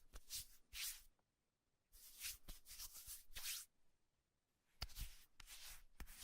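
Faint rustling and scraping from hands handling the pieces and plastic packaging of a toy doctor set. The scrapes come short and in small clusters, with near-silent gaps between them.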